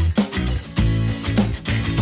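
Background music with a steady beat: bass and guitar.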